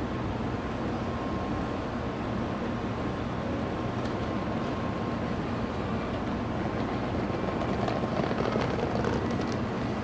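Steady hum of an N700-series Shinkansen train standing at the platform, mixed with general station-platform din. A few faint clicks come near the end.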